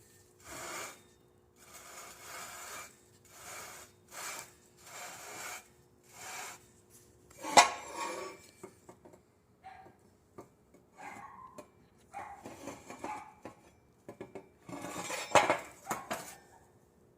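Metal being worked by hand: a run of even rasping strokes, about one a second, then sharp metallic clinks and clatter, with one loud clank about seven and a half seconds in.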